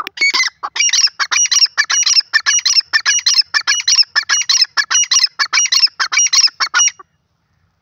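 Grey francolin (teetar) calling: a fast run of short, high-pitched notes, about four a second, that stops abruptly about seven seconds in.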